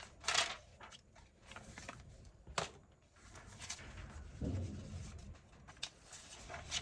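Paper and small craft supplies being handled on a table: short rustles with a few sharp clicks and taps.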